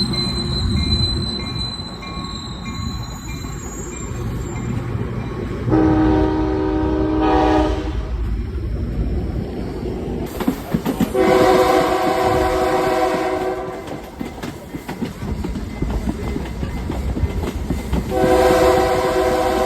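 Locomotive air horn sounding three blasts, each a steady multi-note chord lasting about two to three seconds, the last starting near the end, over the low rumble of a passing train. A faint high steady whine fades out in the first few seconds.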